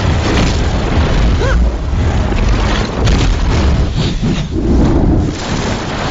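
Loud, dense action-film sound effects: booms and impacts over a heavy low rumble, with several sharp hits through it.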